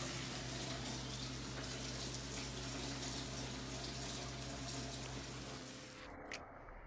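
Fish fillets sizzling in oil in a frying pan: a steady hiss that fades and cuts off about six seconds in. A sustained musical tone dies away beneath it.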